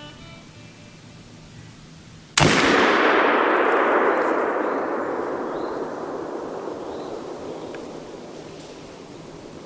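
A single .44 Magnum revolver shot: one sharp crack about two seconds in, then a long rolling echo that slowly fades over the following several seconds.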